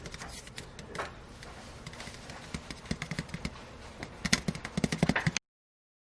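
A run of irregular clicks and knocks over a low rumble, growing louder and denser near the end, then cut off abruptly.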